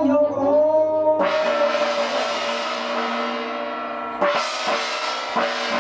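A man's voice over a microphone stops about a second in, and a struck gong-like metal instrument rings out and slowly fades. Near four seconds in a second loud strike starts percussive music with several quick hits.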